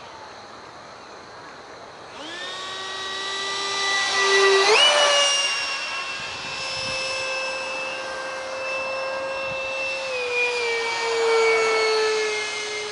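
Detrum 70mm electric ducted fan on an RC foam flying wing whining in flight as it makes a pass. The whine swells after about two seconds, its pitch steps sharply up near five seconds in, then holds steady and glides lower about ten seconds in.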